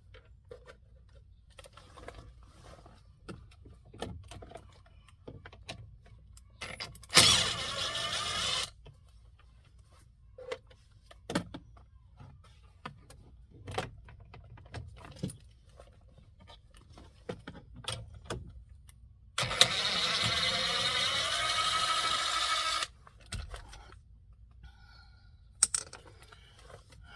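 Plastic steering-column shroud being handled and worked loose: scattered clicks and taps, with two longer scraping, rubbing noises, a short one about seven seconds in and a longer one about twenty seconds in.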